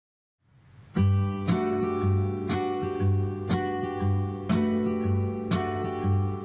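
Background music with a steady rhythm of about two beats a second, starting about a second in after a moment of silence.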